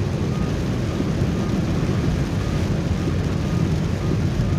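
Steady car-interior noise while driving in heavy rain: a low road and engine rumble under the hiss of rain and spray. A faint short pip repeats about twice a second throughout.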